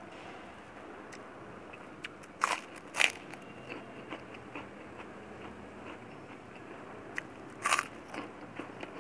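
Crunching bites into a crisp white cracker (kerupuk) and chewing it: two loud crunches close together about two and a half and three seconds in, another loud crunch near the end, and small crackles of chewing in between.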